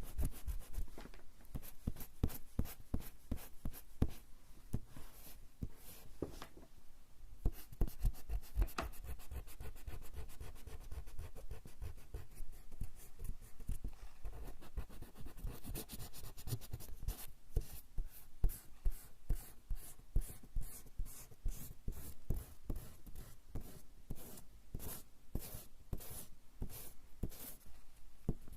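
Rubber eraser rubbed back and forth on coarse straw paper in quick scratchy strokes, several a second, pausing briefly a couple of times.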